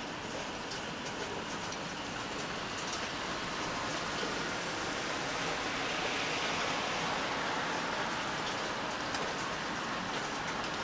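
Steady rain falling: a dense, even hiss with scattered small drip ticks, growing a little louder around the middle.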